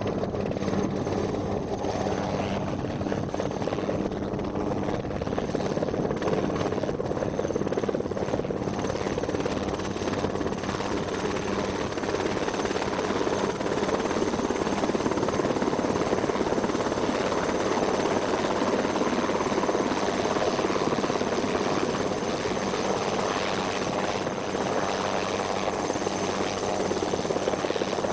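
Helicopter hovering low overhead while it sets down a sling-loaded cargo box, its rotor running steadily.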